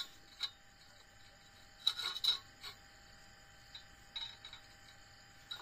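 Light metallic clicks and taps of a steel try square being set on and shifted against a steel baseplate, a small cluster about two seconds in and a few softer ones later.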